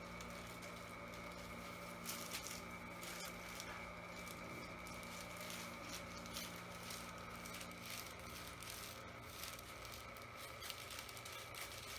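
Faint rustling and soft handling noises, with scattered light crackles, over a steady electrical hum.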